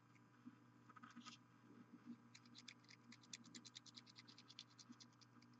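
Faint, rapid scratching of a dry brush's bristles flicked back and forth over a miniature, several strokes a second.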